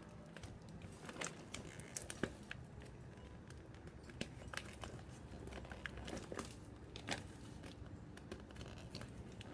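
Brown kraft paper and packing tape crinkling and tearing as they are cut with a box cutter and pulled open by hand, with scattered sharp crackles.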